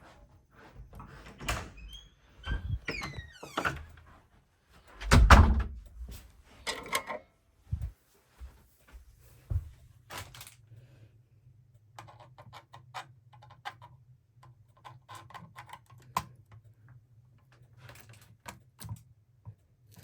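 A string of knocks and thuds in a small room, the loudest about five seconds in, with a short squeak near three seconds. After that comes a steady low hum with scattered light clicks.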